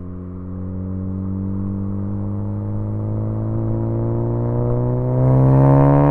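Tuned 2014 Ford Focus ST's turbocharged 2.0-litre four-cylinder, breathing through a Cobb cat-back exhaust and catless downpipe, pulling in gear, its pitch rising slowly as the car accelerates. About five seconds in it gets louder, with a hiss on top.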